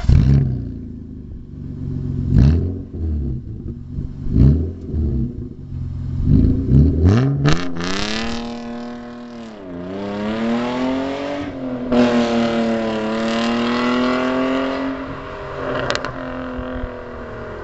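BMW 323Ti E36's straight-six through a custom exhaust, blipped sharply several times. It then revs up and accelerates away, its note climbing steadily and then fading as the car drives off.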